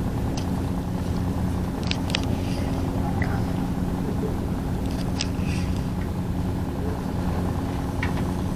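A steady low engine hum that runs evenly throughout, with a few faint sharp clicks over it.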